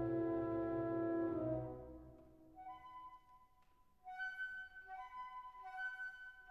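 Background orchestral music: a full held chord that fades away over the first two seconds, then a light melody of short two-note figures repeating about every second and a half.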